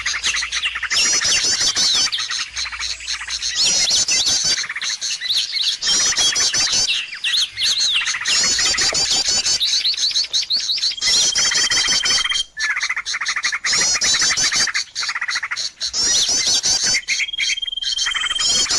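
Bird-lure call recording of many small songbirds chattering at once: dense rapid chirps and trills, with a long steady whistle twice, about 11 and 17 seconds in.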